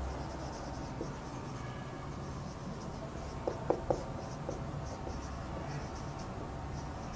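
Marker writing on a whiteboard: faint short strokes as a word is written out, with a few light taps about halfway through.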